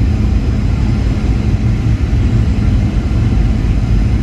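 Steady low rumble of a Boeing 737-800's cabin: engine and airflow noise heard from a passenger seat, with an even hiss over a deep drone.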